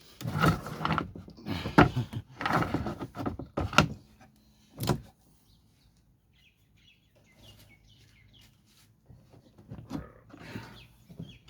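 Plywood being slid and shoved into place in a vehicle's cargo area: scraping and shuffling with several sharp knocks in the first few seconds, then quieter rustling near the end.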